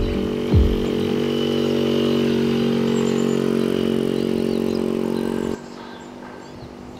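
49cc moped engine running at a steady pitch while riding along, then cutting off abruptly about five and a half seconds in to a much quieter background.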